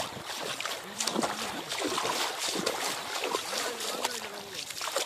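Splashing and sloshing of people wading through shin-deep floodwater in a flooded paddy field, with men's voices calling now and then.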